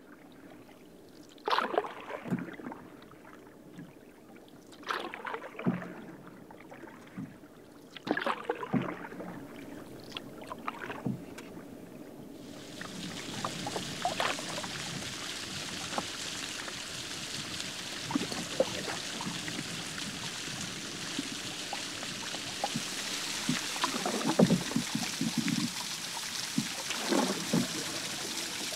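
Canoe paddle strokes, a dip and splash every few seconds. About halfway through, a steady rushing noise of moving water comes in and slowly grows louder under further strokes.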